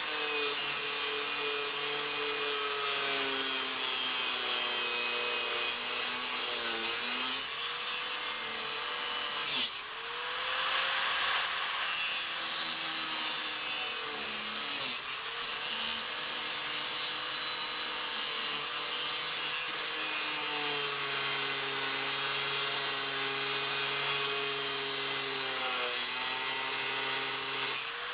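Angle grinder with a grinding wheel cutting into the hardened-steel crossbar of a Kryptonite U-lock. The motor's whine sags in pitch under load and picks back up several times as the pressure on the wheel changes, over a steady grinding hiss.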